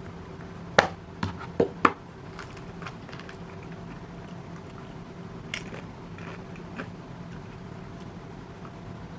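A few sharp clicks and knocks over a steady low hum: four in the first two seconds, then one more past the middle.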